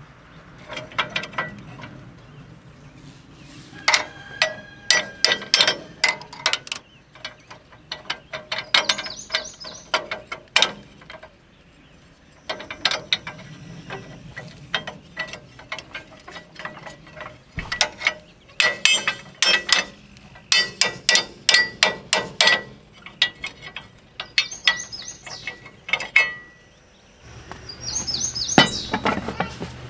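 Metal tractor seat-mount parts and hand tools clicking and clanking in quick runs of sharp knocks, some with a short metallic ring, with pauses between runs.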